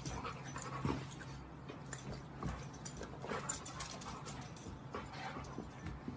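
A pug panting in quick, irregular breaths.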